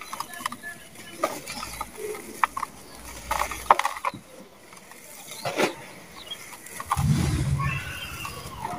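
Hands crushing and crumbling lumps of dry, gritty sand-cement in a plastic tub: a run of short crunchy crackles as the lumps break and the grains fall, then a heavier, lower rumble near the end as the hands dig through the powder.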